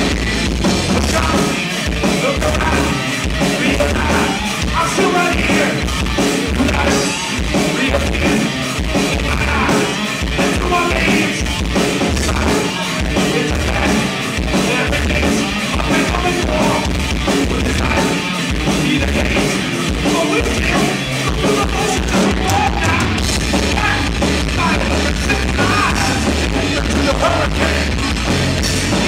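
Live rock band playing a song with electric guitars and a drum kit, without a break.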